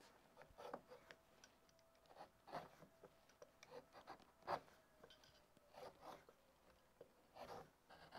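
Crook neck gouge paring shavings from the inside of a green-wood pot by hand. About ten short, faint scraping cuts come at irregular intervals, the strongest about four and a half seconds in.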